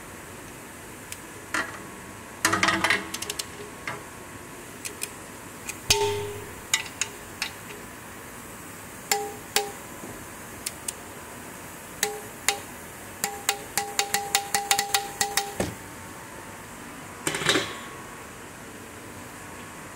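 Ratchet with a socket clicking in short bursts while a new steel sump plug is screwed into the oil pan. A faster run of about a dozen clicks comes near three-quarters of the way through, with a metallic ringing.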